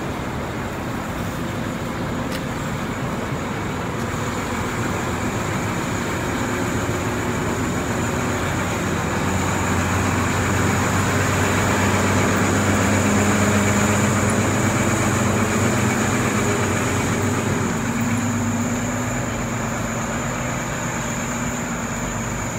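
Street traffic: steady road noise with a vehicle engine's low hum growing louder through the middle and fading again as it passes.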